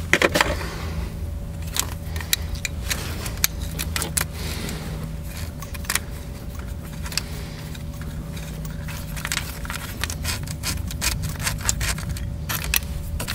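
3/8-inch socket ratchet clicking in irregular runs as a bolt holding the ignition coil of a 4.3-litre V6 is backed out, with a burst of loud clicks at the start. A steady low hum runs underneath.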